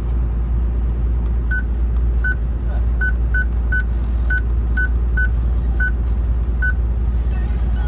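Cab radio's buttons beeping as they are pressed, about a dozen short high beeps at uneven intervals, over the steady low drone of the Caterpillar 320CL excavator's diesel engine running.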